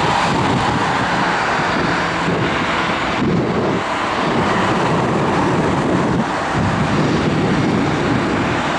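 Airbus A319 jet airliner taxiing, its twin jet engines running at low taxi thrust with a steady rushing noise.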